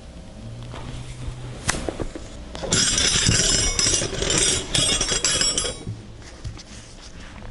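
Steel hand wrenches clinking and jangling against each other as a pile of them is rummaged through. There is a single sharp clink about a second and a half in, then a busy stretch of metal-on-metal rattling for about three seconds.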